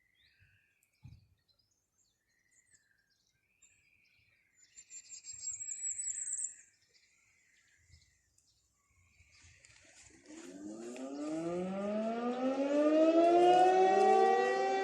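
Civil-defence warning siren being tested, starting up about ten seconds in: its pitch rises steeply as it winds up, then holds a steady wail. Birds chirp before it.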